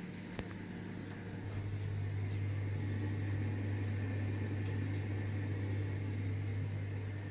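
A mini automatic washing machine's motor running with a steady low hum that gets louder about a second and a half in. There is a single click near the start.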